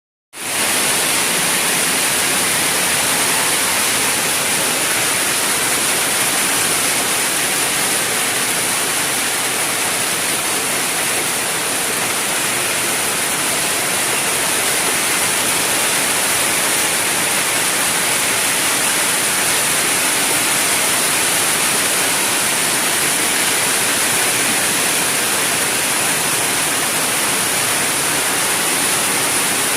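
Steady rain falling in the bush, an even, unbroken hiss, with a thin high-pitched tone held over it throughout.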